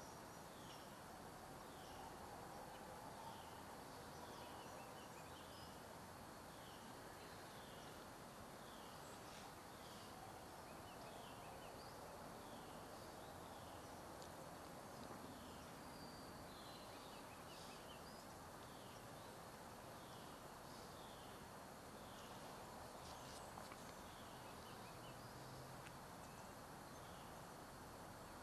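Faint outdoor ambience at near silence: short high chirps from a small animal repeat evenly, about three every two seconds, over a steady hiss.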